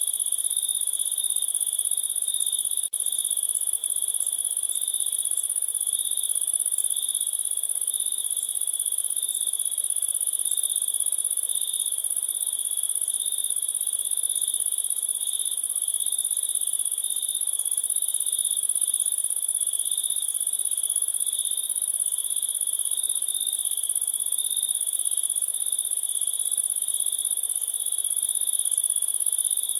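Chorus of crickets chirring continuously, in two steady pitches, a lower trill and a louder, very high one. The sound drops out for an instant twice, about three and four seconds in.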